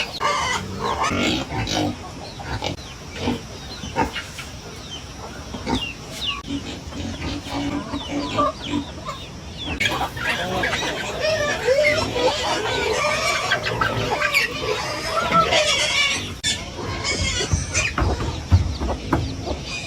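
Chickens clucking, a busy run of short calls, with other farm-animal noises mixed in.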